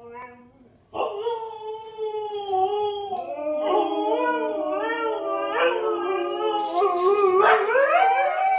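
Huskies howling: long, drawn-out howls that bend slowly up and down in pitch, starting about a second in. From about three seconds in two howls overlap, and near the end one rises higher.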